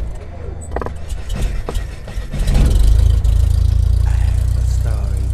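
Logo intro sound effects: a run of crackles and sharp clicks, then a deep rumble that swells about two and a half seconds in and holds steady.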